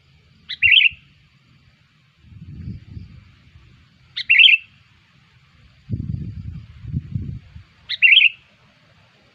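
Sooty-headed bulbul (kutilang) lure call: three short, sharp chirped calls, evenly spaced about three and a half seconds apart. Two stretches of low rumbling fall between the calls.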